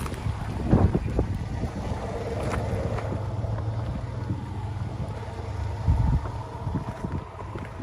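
Ram 1500 Rebel pickup creeping over a rocky dirt trail: a steady low engine rumble with tyres crunching and knocking over stones, and wind buffeting the microphone.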